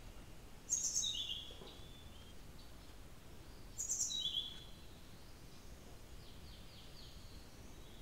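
Cyornis blue flycatcher singing: two short phrases of high notes, about a second in and again at four seconds, each starting very high and stepping down, then a fainter run of short notes, over a light steady hiss.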